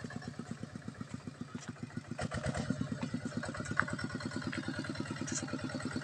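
Two-wheel walking tractor's single-cylinder diesel engine chugging at a steady, rapid beat as it hauls a trailer through deep mud ruts, growing louder about two seconds in.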